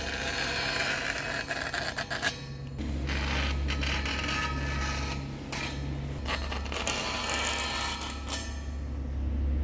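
Scraping and creaking of metal parts in bouts, over a steady low machine hum.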